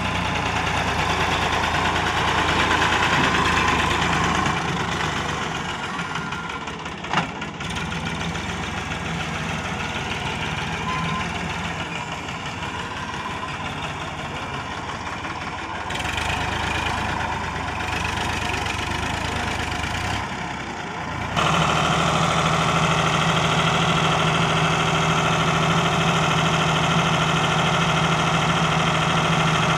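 Sonalika DI 750 tractor's diesel engine running while it drives and manoeuvres with a loaded soil trailer, with a single sharp knock about a quarter of the way in. In the last third the engine holds a steady, louder and higher note as the hydraulic tipper raises the trailer bed to dump the soil.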